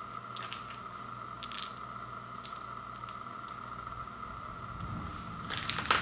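Fun-size candy and its plastic wrappers being handled: a few small, sharp clicks and crinkles, then a louder crinkling of a wrapper near the end, over a steady faint background hum.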